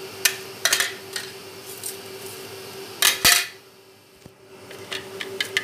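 Plastic spoon knocking and scraping against a clear plastic tub while garlic, red chili flakes and salt are stirred together: scattered light knocks, with a louder pair about three seconds in and a quick run of taps near the end.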